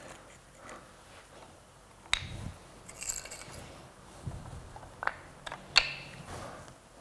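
Cut wooden pieces of a large woodblock being handled, giving sharp clicks and knocks: one about two seconds in and three close together near the end, the last the loudest. A brief scratchy scrape comes about three seconds in.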